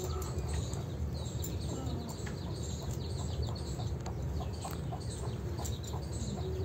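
Drumstick (moringa) leaves being stripped from their stems by hand: light rustling and small irregular snaps over a steady low rumble. Hens cluck nearby.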